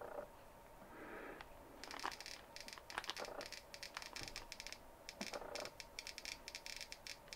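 Victoreen CD V-700 civil defense Geiger counter clicking fast through its add-on speaker as its probe is held to thoriated gas lantern mantles, counting the thorium's slight radioactivity; the clicks come thick from about two seconds in. The mantles' plastic packet crinkles as it is handled.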